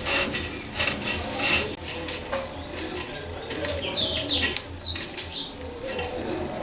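Birds chirping: a run of quick, falling high notes in the middle, over scattered short clicks and scrapes of things being handled.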